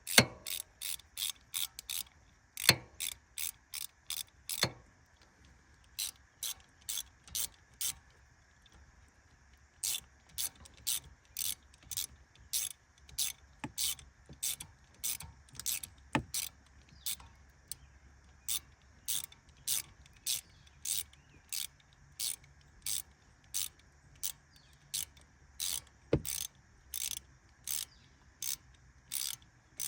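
Hand ratchet wrench clicking in runs of quick back-and-forth strokes, about two to three clicks a second, with short pauses between runs. It is snugging the oil filter cover bolts on an ATV, not yet fully tightened, so the cover seals evenly.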